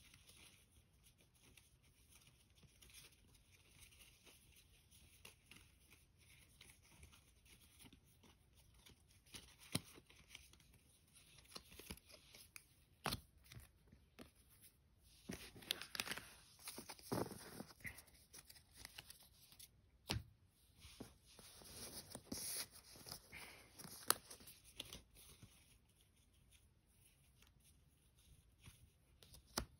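Magic: The Gathering trading cards being handled on a playmat as they are gathered and straightened. The first several seconds are near silence, then soft rustles and sharp little clicks come and go through the middle, fading out again near the end.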